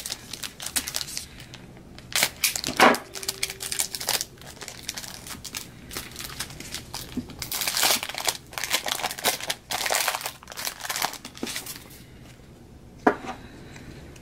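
Plastic wrapper of a trading-card pack crinkling and tearing as it is pulled open by hand, in irregular bursts, with one sharp click near the end.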